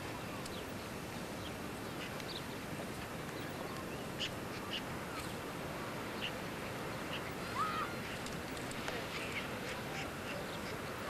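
Birds calling outdoors: scattered short high chirps and one louder squawk a little past the middle, over a steady outdoor hiss.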